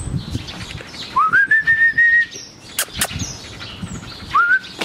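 A person whistling: one long whistle that slides up and then holds, and a short rising one near the end. Two sharp clicks fall between them.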